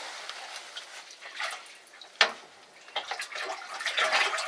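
Water running and splashing steadily, with a single sharp knock about two seconds in and a few lighter knocks near the end.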